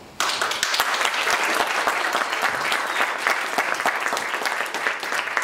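Audience applauding, starting suddenly just after the music has faded out.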